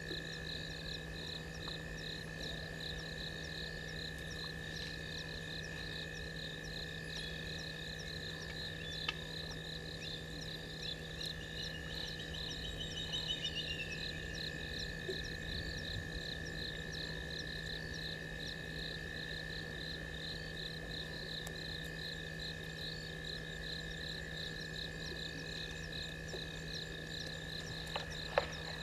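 Night chorus of frogs and insects at a waterhole: a steady, evenly pulsing high chorus over continuous trilling, with a brief run of rising chirps partway through. A few sharp clicks come near the end.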